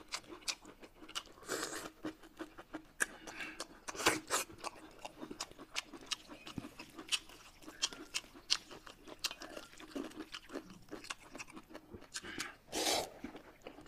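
Close-miked chewing and crunching of crisp food, with many short sharp bites and crunches. Near the end comes a longer noisy slurp of noodles.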